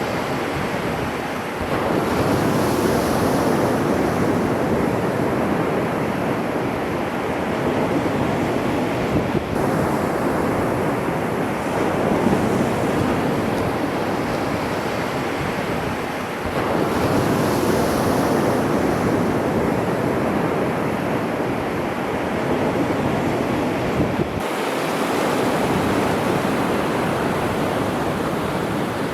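Sea waves breaking and washing up the shore in a continuous rush, swelling louder twice, about two seconds in and again about halfway through.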